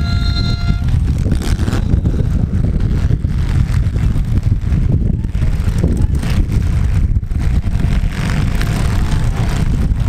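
Compact demolition-derby cars' engines running hard in a dense, steady rumble, with a few sharp knocks from cars colliding.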